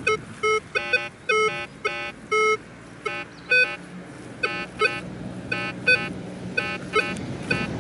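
Minelab Vanquish 540 metal detector sounding short, repeated target beeps as its coil is swept back and forth over a small signal, about two to three a second; some beeps step in pitch partway through.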